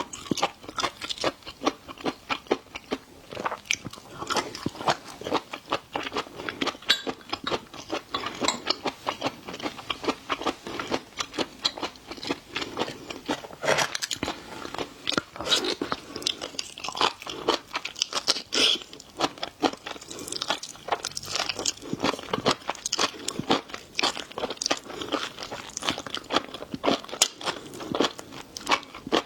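Close-miked chewing and biting of seafood, a dense run of crisp crunches throughout.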